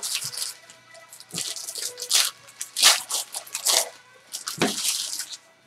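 Sports card packs and cards being handled: irregular crinkling and rustling of pack wrappers and card stock in short bursts.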